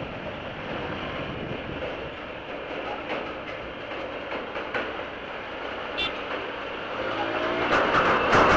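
Riding noise from a TVS Apache RTR 160 4V motorcycle on the move: steady wind and road rush with engine sound. About seven seconds in, a pitched engine note rises, and the noise grows louder near the end.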